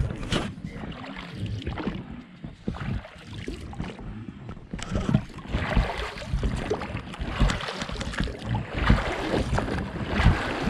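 Oars of an inflatable boat being rowed: the blades splash and swish through the water in repeated strokes, with dull low thumps in between.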